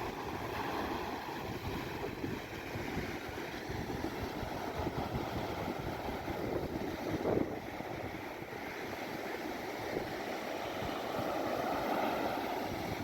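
Sea surf washing on a beach, with wind buffeting the microphone.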